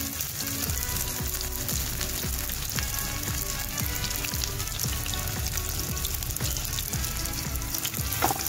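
Marinated chicken strips sizzling and crackling in hot oil in a non-stick frying pan, a steady dense crackle.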